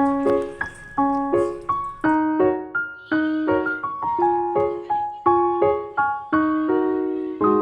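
Background piano music: a melody of single notes struck about three times a second, each ringing and fading.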